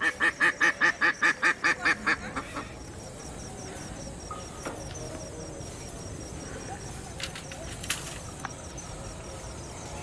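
A duck quacking a fast run of loud calls, about six a second, that fades away after two or three seconds. After it, a quieter background with a couple of faint clicks near the end.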